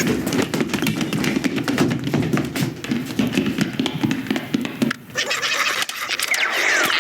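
Film sound effects: a dense run of rapid tapping and clattering for about five seconds, then sparser taps, with a few short squeaky falling chirps near the end.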